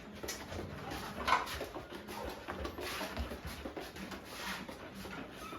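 A cat crying, with faint short cries now and then.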